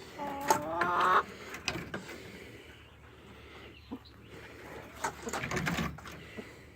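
A chicken gives a wavering, drawn-out call in the first second, followed by scattered clicks and knocks and a brief scuffing rustle about five seconds in.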